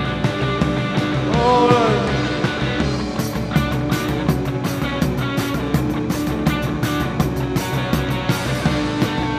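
A rock band playing live, with a steady drum beat and cymbal hits coming in about three seconds in.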